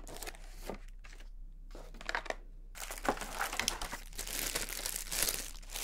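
Handling of a cardboard box and its thin white wrapping close to the microphone: a few light rustles and scrapes in the first half, then denser crinkling of the wrapping from about halfway through.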